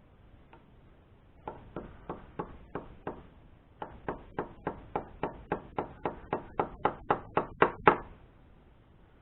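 Hammer blows driving a part of a mini lathe further in: about six taps, a short pause, then a quicker run of about four blows a second that grows louder and stops near the end.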